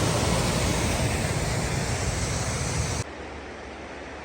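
Rushing water of Turtleback Falls, a loud steady roar that cuts off abruptly about three seconds in, leaving a much fainter steady hiss.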